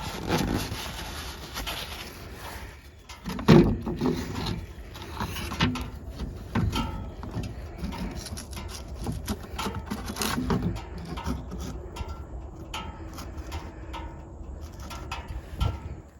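Hands at work around the side-by-side's engine area: irregular rubbing, clicks and knocks, with one louder knock about three and a half seconds in.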